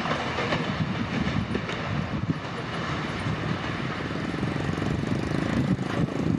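Coal train's loaded wagons and rear brake van rolling away on the track: a steady rumble of steel wheels on rail with scattered clicks from the rail joints.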